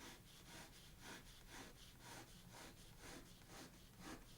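Faint pencil strokes on paper, short quick scratches about two to three a second as pine needles are drawn.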